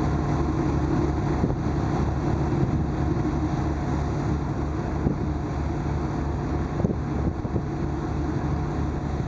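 A motor boat's engines running steadily under way at sea: a constant low drone with a pulsing throb underneath, mixed with wind on the microphone.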